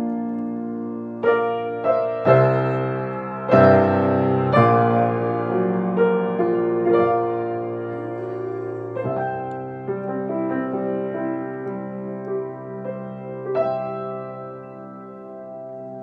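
Acoustic piano played by two people, four hands, in a slow passage of struck chords and melody. It settles on a long held final chord that slowly fades, then is damped off at the very end.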